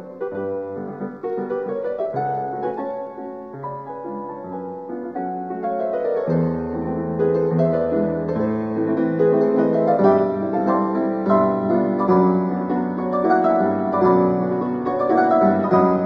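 Piano music, a run of changing notes that grows fuller and louder about six seconds in.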